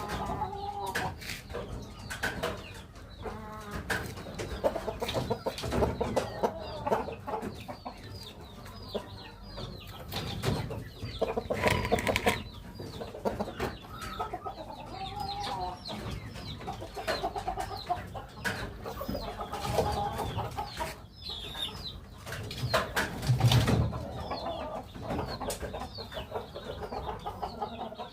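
Chickens clucking and calling in short repeated notes, mixed with scattered clicks and knocks.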